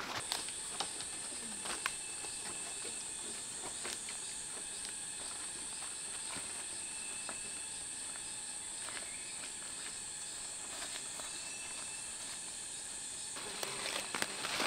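Steady high-pitched insect drone over quiet outdoor ambience, with faint scattered clicks and rustles. Near the end, louder rustling and snapping of plants.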